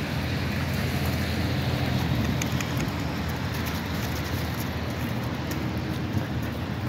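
Steady low rumble with a hiss over it: outdoor background noise, with a few faint high ticks.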